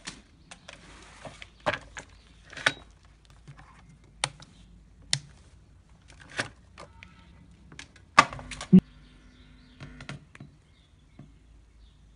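Handling noises: a dozen or so scattered sharp clicks and knocks, with two loud ones about eight seconds in, as the speaker and a phone are handled.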